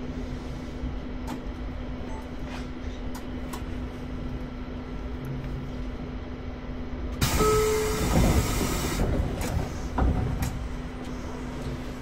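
Electric train running, heard from its cab: a steady rumble of wheels on rail with a constant electrical hum and occasional sharp clicks. About seven seconds in, a loud hiss starts suddenly, lasts about two seconds and cuts off, followed by a few heavier knocks.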